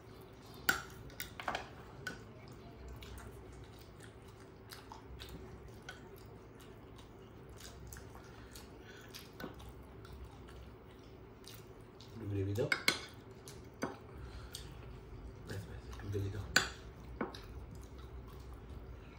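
Scattered clinks and scrapes of a steel spoon against a glass serving dish and steel plates while curry is served, with a louder cluster of clatters about twelve seconds in.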